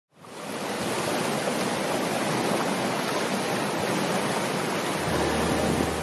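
Sea surf: waves breaking and washing against a rocky shore, a steady rushing noise that fades in at the start. A low hum joins about five seconds in.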